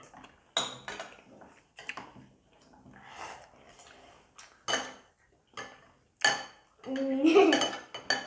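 Metal spoons and chopsticks clinking against ceramic bowls and plates while eating, as a handful of sharp separate clinks. Near the end a voice sounds briefly, louder than the clinks.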